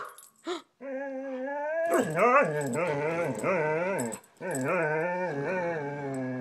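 Husky vocalizing in long, wavering, moaning calls whose pitch wobbles up and down, several running together with a short break about two-thirds of the way through.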